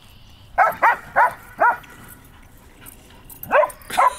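A dog barking in play: four quick barks in the first couple of seconds, then two more near the end.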